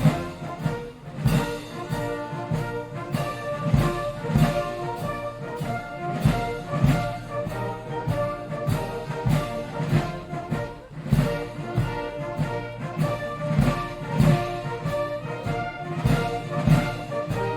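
Brass-led orchestral march music with a steady, evenly spaced beat.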